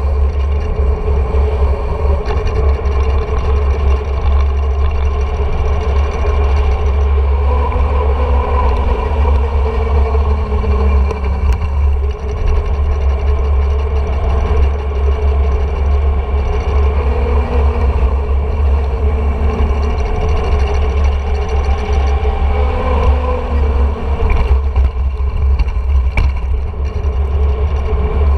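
Mountain bike coasting fast down an asphalt road: heavy wind rumble on the action-camera microphone, with a steady, slightly wavering hum from the rolling bike.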